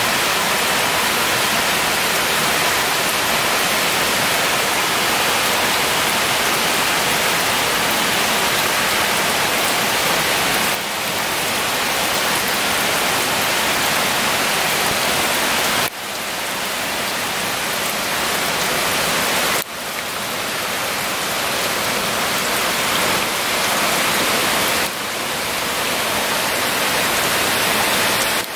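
Steady, even rush of water from a shallow stream running over flat rock slabs, with a few sudden brief dips where the sound shifts.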